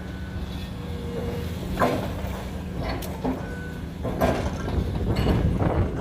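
Heavy construction machinery running: a steady engine drone with scattered metallic clanks, turning into a louder, denser rattling after about four seconds.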